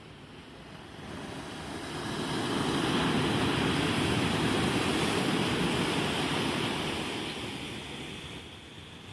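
Ocean surf: one wave breaking on the shore, its noise swelling over about two seconds, holding, then fading away near the end.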